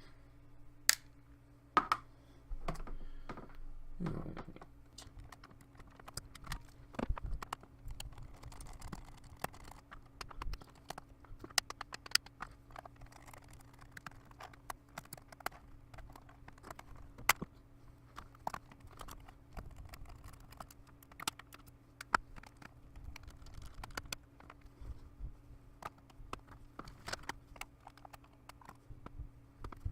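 Irregular clicks, taps and light knocks of plastic and small metal parts as a Dell laptop's casing is unscrewed and opened with a small Phillips screwdriver, over a faint steady low hum.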